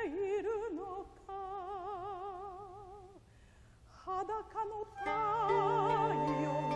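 A woman singing in a trained, operatic style, holding long notes with wide vibrato. She pauses briefly about three seconds in, then sings again. From about five seconds in, sustained instrumental notes and a low held tone from the accompanying ensemble join her.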